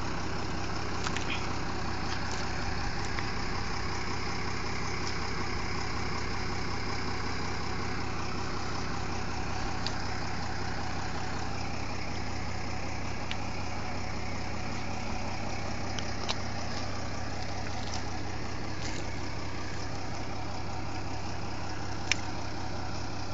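A jitney's engine running at a steady pitch, with no revving, and a few sharp clicks scattered through it.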